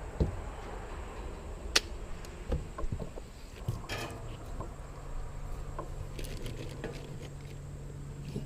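Scattered light knocks and clicks of thin sheet-metal trim being handled and fitted, with a sharper click near two seconds in and a small clatter around the middle. A steady low hum sets in about halfway through.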